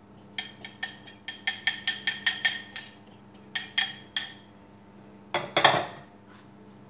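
A utensil beating eggs and cream in a glass bowl: a quick, even run of ringing glass clinks, about five a second, for some four seconds. Near the end comes one louder, duller clatter of the bowl or utensil.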